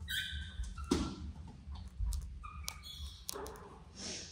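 A pet monkey giving a few short, high squeaks, among scattered light knocks and clicks.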